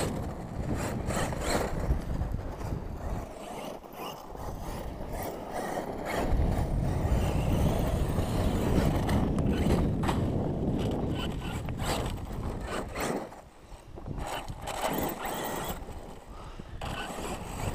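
Wind rumbling on the microphone, with irregular crunches and scrapes on gravel as a radio-controlled truck is driven over a dirt pile.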